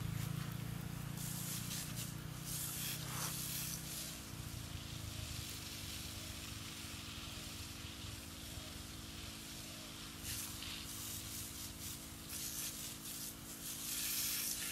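Water spraying from a garden hose onto a vegetable bed, a hiss that swells and fades as the spray is moved. A low hum stops about four seconds in.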